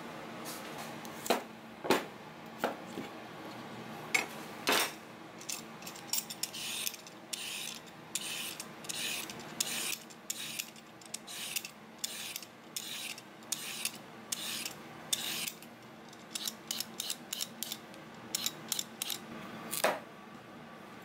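A Y-peeler scraping strips off a raw carrot in regular strokes, a little under two a second. A few knocks before it, then quick clicks and a sharp knock of a kitchen knife cutting through the carrot onto a plastic cutting board near the end.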